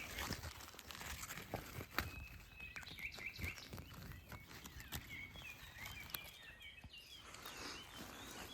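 Small songbirds chirping in short rising and falling notes, with scattered footsteps and crackles on the forest floor.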